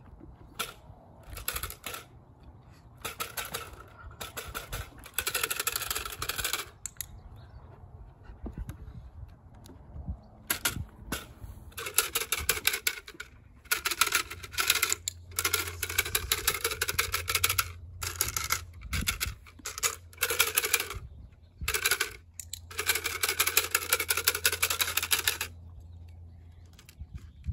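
Clatter stick shaken in repeated bursts of rapid, dry rattling. There are about a dozen bursts of one to two seconds each, with short pauses between them.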